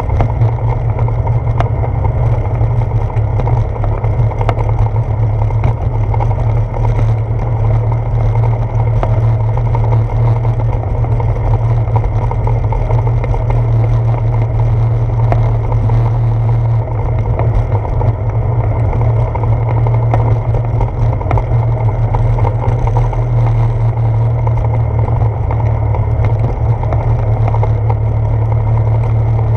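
Bicycle tyres rolling over the planks of a wooden boardwalk: a steady low rumble.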